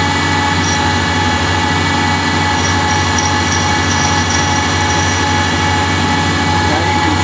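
Ganesh CNC tool-room lathe running a turning cycle on a small 6061 aluminum part, cutting dry without coolant: a steady machine hum and whine with several constant tones, with faint short high tones in the middle as the tool cuts.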